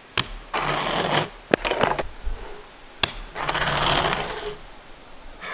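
BMX bike on asphalt during a slider trick: two short scraping stretches of the tyres sliding on the road, each under a second, with a few sharp clicks and knocks from the bike.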